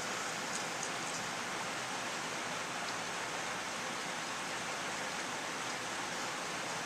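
Steady, even hiss, with a few faint light clicks about half a second to a second in.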